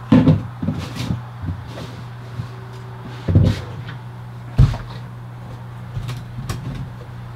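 Tools and an oil drain pan being handled and moved, giving a series of separate knocks and clunks, the loudest at the very start, about three and a half seconds in and just before five seconds, over a steady low hum.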